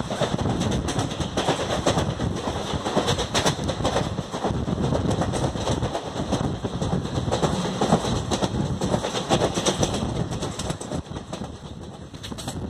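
Wheels of the Pune–Indore Express coach clattering over the track at speed: a dense, irregular run of clicks and knocks over steady running noise, heard from the coach doorway. The rattle eases a little near the end.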